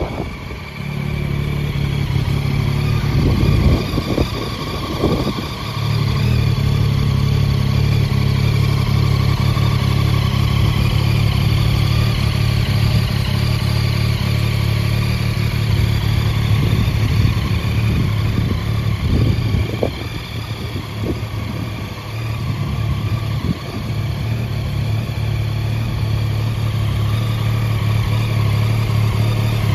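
Yamaha Tracer 9 GT's 890 cc inline-three engine idling steadily, with a few short bursts of noise over it in the first seconds and again around the middle.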